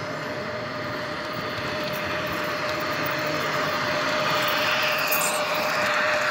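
Model electric train running along the layout track, its motor and wheel noise growing louder as it approaches and passes close by, over a steady background hum.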